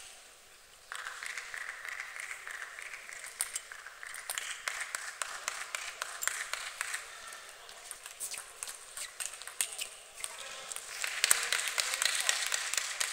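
Table tennis rally: a run of quick, sharp clicks of the ball on bats and table, over the hum of voices in the hall. Near the end a louder burst of voices as the point finishes.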